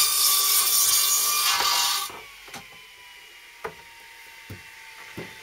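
Electric mitre saw cutting through a planed timber board, loud until the cut ends about two seconds in. The blade then spins down with a faint, slowly falling whine, while a few light knocks come from the board being handled.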